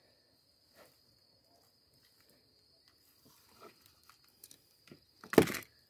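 Steady high-pitched insect trill of crickets in the background, with faint ticks of handling, and one short loud grunt-like sound near the end.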